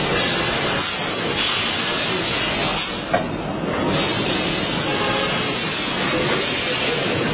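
Steady hiss of air from a pneumatic suction-cup lifter on an LED panel assembly line, breaking off briefly with a click about three seconds in.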